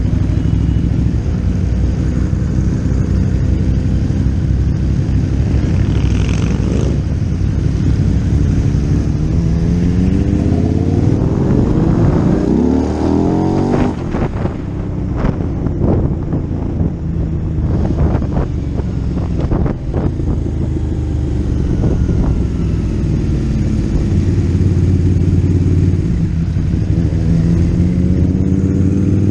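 Motorcycle engine running on the move, its pitch rising as it accelerates about ten seconds in and again near the end. In between come a series of short, sharp knocks and pops and a brief drop in engine sound.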